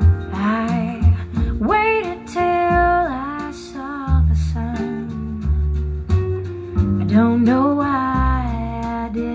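A song with a singing voice, guitar, deep bass notes and drum hits played through a pair of homemade sealed two-way speakers built from a Focal IS 200 kit and driven by an SD 800x4 amplifier, with no subwoofer, so all the bass comes from the two-way speakers.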